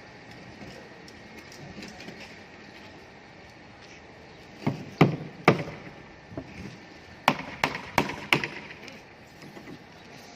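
Hammer striking nails into wooden formwork boards: three blows about halfway through, then four more in a steady rhythm of about three a second.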